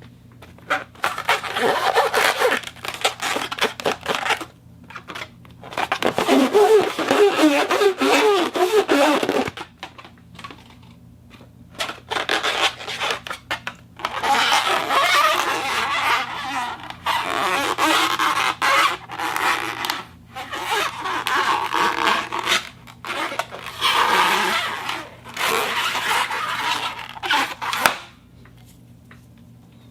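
Foley sounds from a turntable and a crystal balloon: rubbing and scraping that comes in bouts of a few seconds, with short pauses between, over a faint steady low hum.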